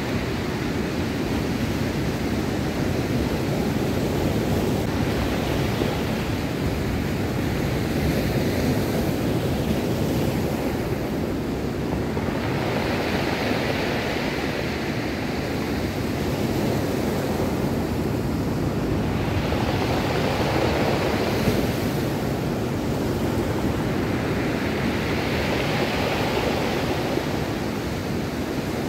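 Ocean surf breaking on a cobble beach. The wash rises and falls about every six seconds as each wave runs up the stones and drains back.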